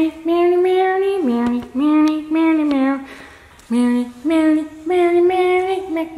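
A high voice singing a slow melody without words, one held note after another, each about a second long with short breaks and a pause about three seconds in.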